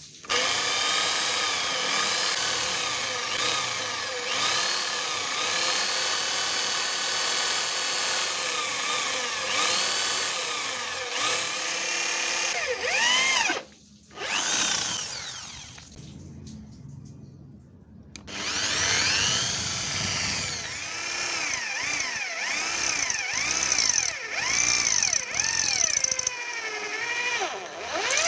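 Electric angle grinder, set up as a homemade circular saw, cutting under load: its whine repeatedly dips and recovers as the blade bites. It stops briefly about halfway, runs quieter for a few seconds, then cuts hard again.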